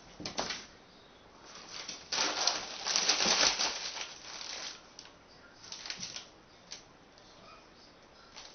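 Plastic shrink-wrap on a case of water bottles crinkling and rustling as a kitten scrambles into it. A short rustle comes just after the start, a long loud stretch of crackling from about two to nearly five seconds in, then smaller rustles.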